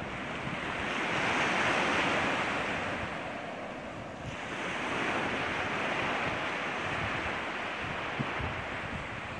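Small waves washing up the beach, swelling about a second in and again around five seconds, with wind rumbling on the microphone.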